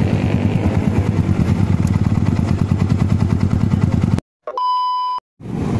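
Yamaha R15's single-cylinder engine idling through a Sakura AR09 aftermarket racing exhaust, a steady, soft-sounding pulse. A little past four seconds it cuts out abruptly, a short electronic beep with overtones plays for under a second, and the idle resumes near the end.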